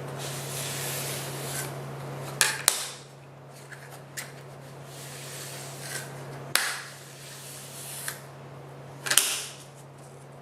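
Hand rubbing on small workpieces, as in sanding or wiping them down before gluing: stretches of scuffing hiss, each ending in a sharp click, three times. A steady low hum sits underneath.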